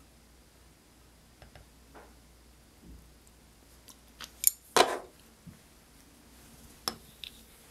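Wooden spoon and chopsticks clicking against a ceramic bowl and a plastic food container: a few scattered light clicks, then a pair of sharp clacks about halfway through and a single one near the end.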